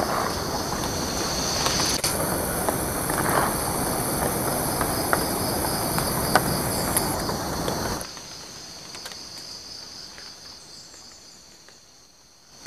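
Insects buzzing steadily in a high, pulsing drone over a loud rushing noise that drops away about eight seconds in, leaving the insects over a quieter background. Right at the very end a rifle shot cracks.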